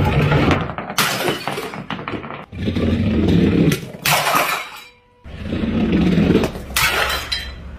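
Painted glass jars shattering as things rolled down a chipboard ramp hit them: three sudden crashes with ringing shards, about one, four and seven seconds in, with a low rolling rumble between them.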